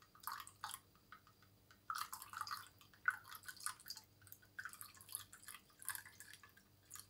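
Warm water splashing and dripping faintly in a glass holding honey and black pepper, in short irregular bursts with brief gaps.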